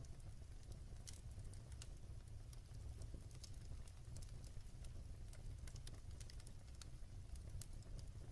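Wood fire burning in a fireplace: a soft, low rumble of flames with many small, irregular crackles and pops.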